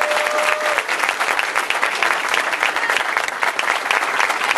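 Audience applauding steadily, with a short held cheer from one voice at the very start.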